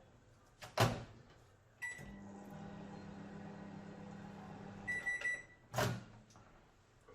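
Microwave oven: its door knocks shut, a beep sounds and the oven hums steadily for about three seconds, then a few short beeps as it stops, and the door knocks open.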